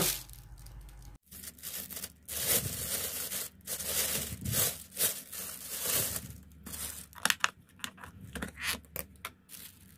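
Thin plastic carrier bag rustling and crinkling as a takeaway food parcel is unwrapped, then several sharp plastic clicks near the end as a round plastic food container's lid is handled and prised open.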